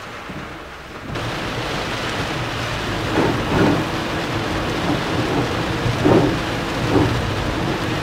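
Heavy typhoon rain pelting the car's windshield and body, heard from inside the cabin. It gets suddenly louder about a second in, then keeps up with several short swells.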